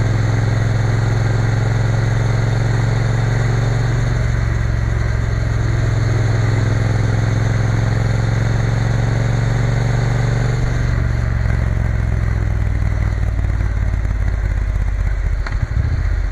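Triumph Bonneville T120 parallel-twin engine running at a steady cruise, heard over wind noise. Its note drops about eleven seconds in, and it falters briefly near the end.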